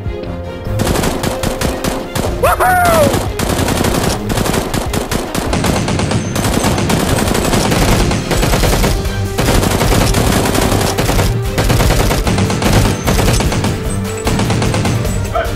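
Dubbed-in automatic gunfire sound effects in long rapid bursts, starting just under a second in, over background music.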